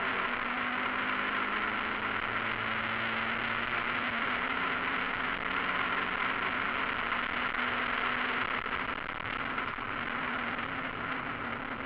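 Mazda MX-5 race car's four-cylinder engine running hard under load, heard from inside the cockpit and largely buried under a steady hiss of wind and road noise on a wet track. The overall level eases slightly near the end.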